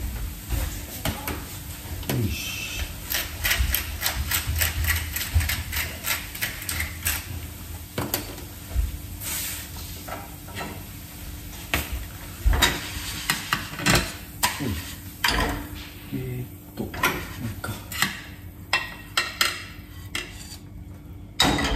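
Kitchen clatter: plates, a cup and cutlery knocked and set down in a string of short clicks and knocks, over the faint sizzle of a potato galette frying in olive oil. Near the end the galette is slid out of the frying pan onto a plate.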